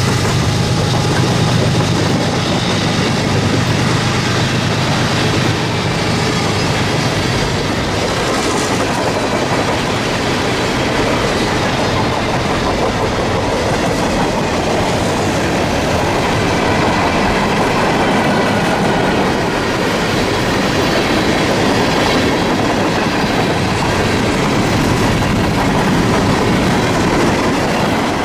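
Freight train cars rolling past at close range: steady, loud wheel-on-rail noise from a manifest/autorack freight train.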